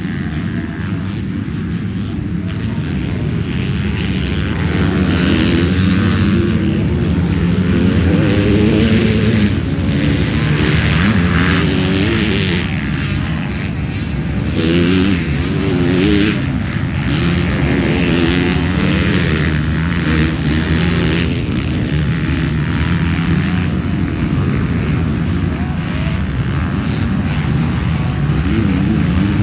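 Several MX2-class motocross bikes racing around a dirt track, their engines overlapping and revving up and down as the riders accelerate and back off.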